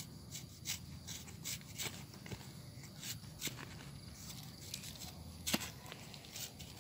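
Knife cutting and paring the thick rind of a pomelo: a run of short, irregular crisp cuts and scrapes, with one sharper click about five and a half seconds in.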